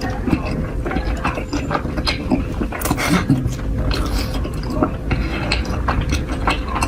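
Close-miked eating: a person chewing, with a dense run of small irregular crunches and clicks.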